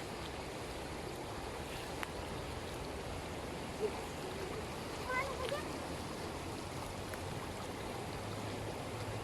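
Steady rush of flowing floodwater, with a few brief, faint high-pitched calls about four and five seconds in.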